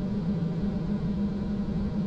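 Toyota HiAce van's engine running, a steady low hum with rumble beneath it.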